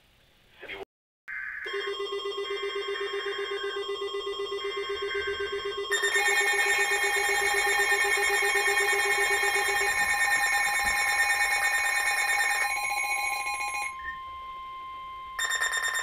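Weather alert radios sounding a Severe Thunderstorm Warning. Three short screeching bursts of digital alert header data play over a steady alert tone and a fast-pulsing alarm beep. About six seconds in, more radios join with their own steady alarm tones, which stop a couple of seconds before the end, when another header burst starts.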